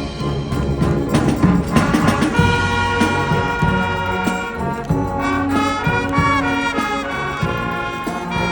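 Brass band playing: trumpets and trombones over drums, with sustained notes and a few quick melodic runs.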